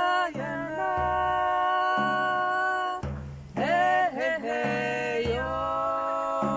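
Two women singing long, held notes to a large hand frame drum, which is struck roughly once a second with deep, booming beats.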